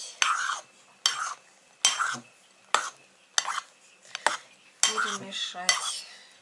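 Metal spoon stirring condensed milk into whipped cream in a glass bowl: each stroke a sharp clink of spoon on glass followed by a short swish through the cream, a little more than once a second.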